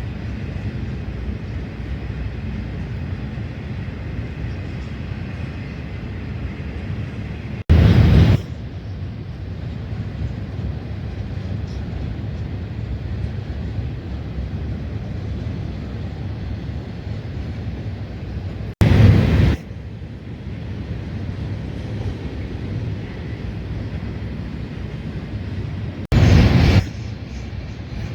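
Diesel freight locomotives running with a steady low rumble. Three brief, much louder bursts of rushing noise break in, about eight, nineteen and twenty-six seconds in, each starting and stopping abruptly.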